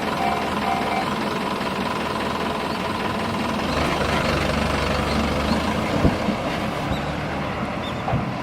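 A commuter train's rumble at a railway level crossing, building from about three and a half seconds in as the train nears the crossing. The crossing's warning bell rings in even pulses at the start.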